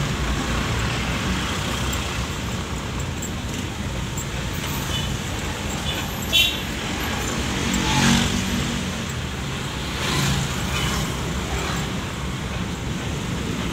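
Truck engine running and road noise heard from inside the cab while driving slowly, rising a little around the middle, with a brief high-pitched tone about six seconds in.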